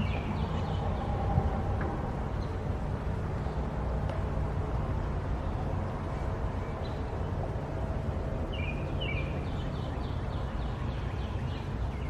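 Outdoor ambience with a steady low rumble. A bird calls about two-thirds of the way in: two short chirps, then a quick run of high notes.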